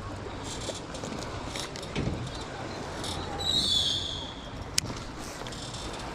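Fishing reel being cranked in short bursts as a hooked fish is reeled in to the boat, with a brief high squeal about halfway through and a sharp click shortly after, over a low steady hum.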